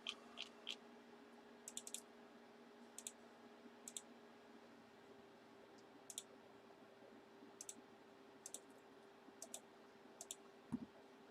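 Scattered, irregular computer mouse clicks, single and in quick pairs and triples, over a faint steady hum, with a soft knock near the end.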